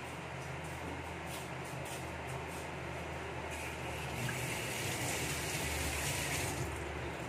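Coconut-milk adobo sauce simmering and bubbling in a frying pan on a gas burner, over a steady low hum. A few soft pops come about a second in, and the bubbling hiss swells for a few seconds past the middle.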